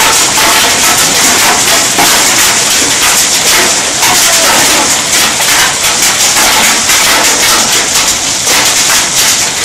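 Heavy rain mixed with hailstones falling hard, a loud, dense hiss full of rapid sharp ticks of stones striking hard surfaces.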